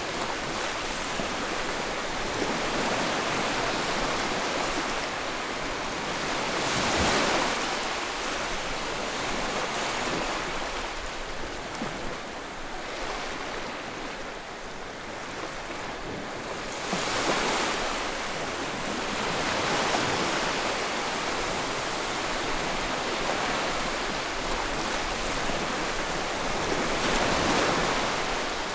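Ocean waves breaking and washing on the shore, a continuous rushing surf that swells louder with each wave about every ten seconds.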